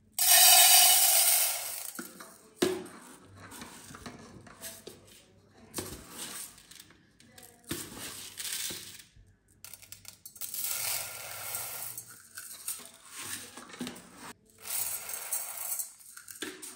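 Dry long-grain rice poured into an empty stainless steel pot, the grains rattling and hissing against the metal. A loud first pour is followed by scattered clicks and knocks, then two more pours near the end.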